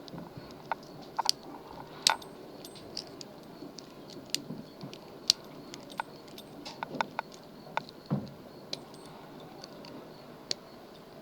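Small metallic clicks and taps of a lock pick and tensioner working inside a lock, coming irregularly, with a few louder ticks among them.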